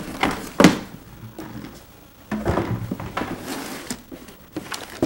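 A cardboard box being handled and pulled open by hand: a couple of sharp knocks in the first second, then a stretch of cardboard scraping and rustling, with a few small clicks near the end.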